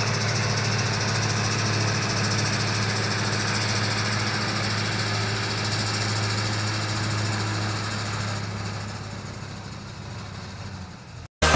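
Zetor tractor's diesel engine running steadily at a distance, fading away over the last few seconds as the tractor drives off.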